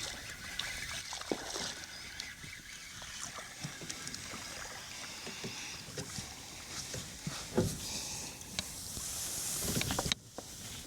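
Water splashing and scattered light knocks and clicks against a kayak as a hooked speckled trout is fought to the boat. Near the end a louder splashing hiss builds and then cuts off suddenly.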